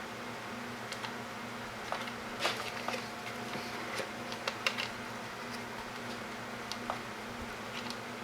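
Scattered light clicks and snips of wire strippers and fingers working stranded wire, over a steady low electrical hum.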